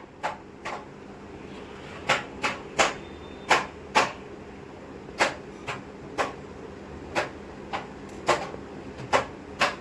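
Sharp plastic clicks and taps from laptop case parts being handled and pressed into place, about two a second at an irregular pace.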